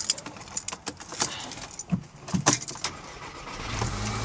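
Keys jangling and clicking, then near the end the Audi A3's 1.8 FSI four-cylinder engine comes in with a steady low drone. The engine is still misfiring despite new coils and plugs.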